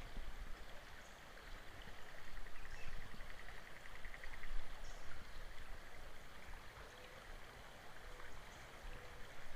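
Creek water running faintly, with a faint rapid ticking for a couple of seconds about two seconds in.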